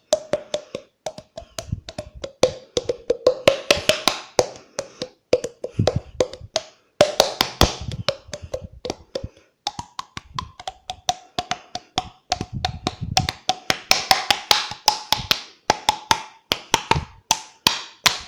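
Mouth-made sound effects: a rapid, irregular run of tongue clicks and pops, with a steady tone underneath that steps up in pitch about ten seconds in.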